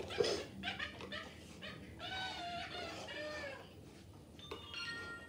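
Interactive toy owl giving its electronic animal-like calls: short chirps, then a warbling cry about two seconds in, and a few steady electronic beeps near the end. The calls are the toy's way of signalling its mood or needs.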